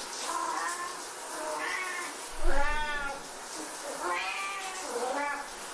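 Siamese cats meowing loudly and insistently at a closed shower door, about six drawn-out calls that bend up and down in pitch, the loudest about halfway through.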